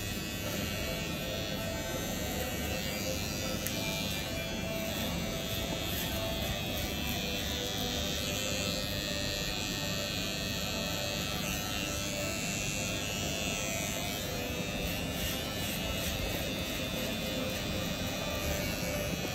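Electric hair clipper buzzing steadily as it cuts hair.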